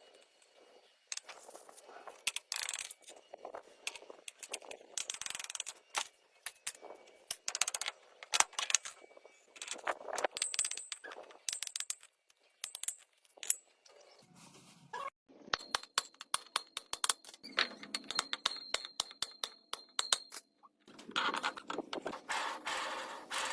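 Irregular sharp metallic clicks and clinks with stretches of scraping, and a faint steady high whine for a few seconds past the middle.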